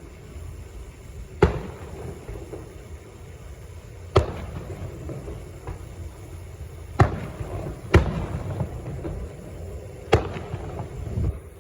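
Fireworks going off: five sharp bangs spaced a few seconds apart, two of them about a second apart, each trailing off in a rumbling echo.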